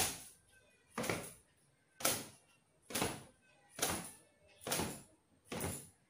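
Long wet hair being beaten dry with a cotton gamchha towel: seven sharp towel strokes against the hair, about one a second, coming slightly quicker near the end.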